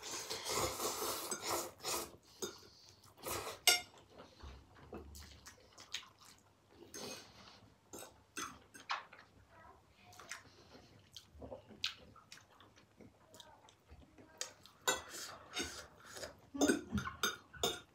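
Spicy ramen noodles slurped for the first couple of seconds, then utensils clicking and scraping against porcelain bowls in short scattered clinks, more often near the end.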